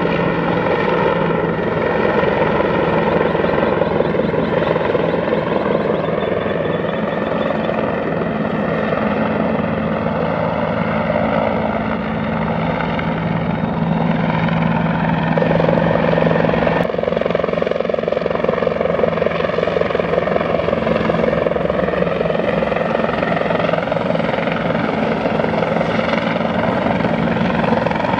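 Bell 412 four-bladed, twin-engine utility helicopter flying past: steady rotor and turbine noise with a held high whine.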